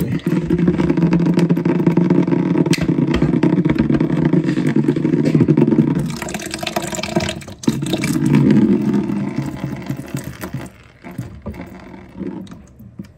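A small handheld power tool's motor running steadily for about six seconds, stopping, then running again for about two seconds, as it works on a water pipe overhead.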